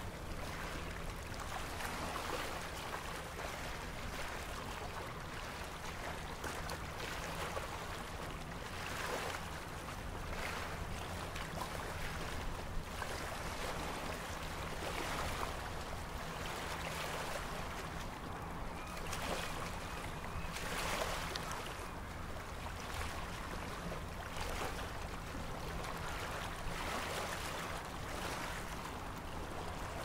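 Small waves lapping against the shore and a floating dock, coming in soft swells every second or two, over a low steady hum.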